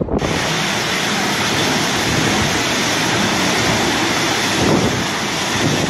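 Storm-force wind and heavy wind-driven rain: a loud, dense, steady rush that starts abruptly a moment in, with an uneven rumble underneath.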